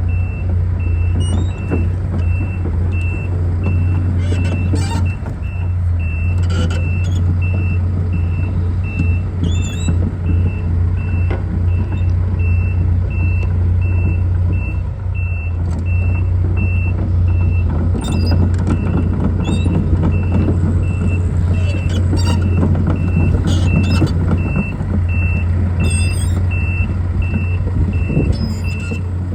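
Case CX245D SR excavator's diesel engine running steadily while its travel alarm beeps at a regular pace, the sign that the machine is tracking. Occasional metallic clanks from the tracks or undercarriage.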